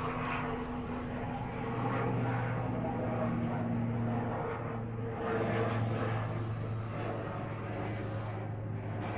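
A steady low engine drone that swells slightly about two seconds in and again around the middle.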